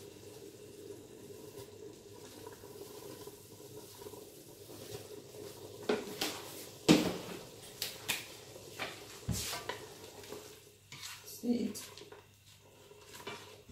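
Ground crayfish being shaken from a jar into a stainless steel pot of palm oil and meat and stirred in with a spoon, over a faint steady sizzle from the hot pot. From about six seconds in come a string of sharp clicks and knocks of the jar and spoon against the pot.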